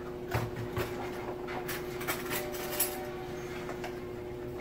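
Light clinks and knocks of a utensil against dishes, about six in the first three seconds, while chicken base seasoning is added to a pot of rice, over a steady hum.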